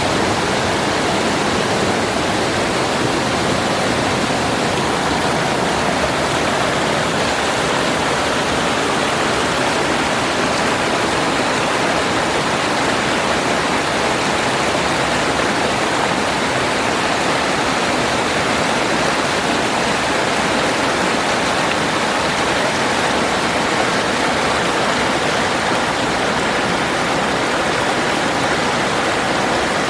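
Small mountain waterfall falling in several cascades, rushing in a steady, unbroken roar.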